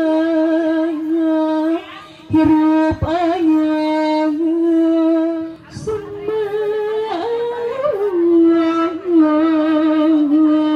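A woman's voice singing long held notes with a wavering, ornamented line, rising to a higher phrase about six seconds in before settling back to the lower note.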